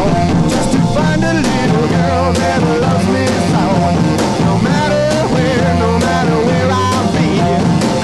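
Rock music soundtrack: pitched instruments over a drum kit with frequent sharp hits.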